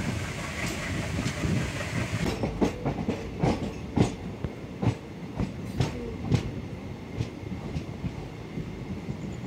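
Passenger train pulling out of a station, heard from aboard: a steady hiss that drops away about two seconds in, then the wheels clacking over the rail joints in a run of sharp, irregular clacks, loudest about four seconds in and thinning out toward the end.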